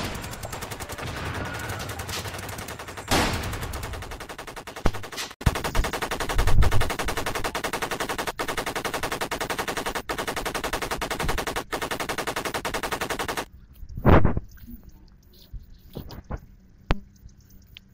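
Edited-in sound effect of automatic gunfire: rapid continuous machine-gun fire that cuts off abruptly about three-quarters of the way through, followed by one loud shot and a few scattered single shots.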